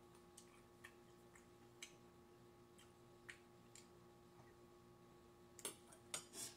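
Near silence with faint, even ticking about twice a second over a low steady hum; near the end a few louder clinks as a metal spoon is set down in an empty ceramic bowl.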